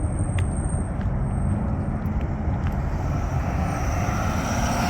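Steady road traffic noise on a busy street: cars going by, with a constant rumble.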